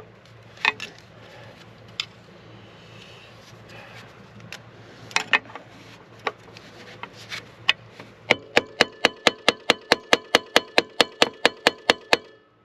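Hand tool prying and scraping at a stuck EGR valve in its housing: a few separate knocks and scrapes, then a run of even, ringing metallic clicks at about four a second for about four seconds.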